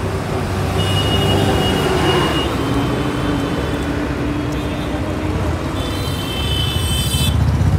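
Roadside traffic noise: vehicle engines running with a steady low hum, a slowly falling engine tone, and brief high tones about a second in and again near the end.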